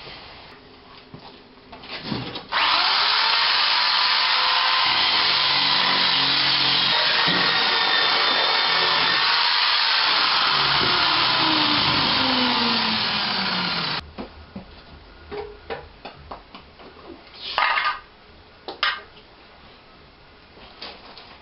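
Power tool worked on the car's metal bodywork. It runs loud and steady for about eleven seconds, its pitch sagging near the end, then cuts off, followed by a few short scrapes and knocks.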